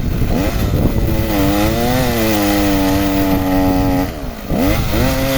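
Chainsaw engine running at high throttle while cutting wood, its pitch rising and falling. About four seconds in the revs drop briefly, then it revs up again.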